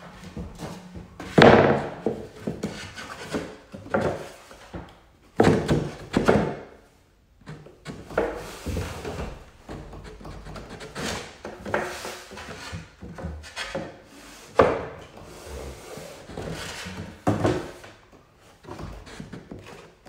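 Crown molding being handled and pushed into place against the wall and ceiling: a series of hollow knocks and thunks with scraping and rubbing between them.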